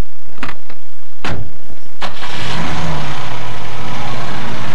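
A few sharp clicks, then a car engine catches about two seconds in and runs loud, its pitch slowly rising as it revs up near the end.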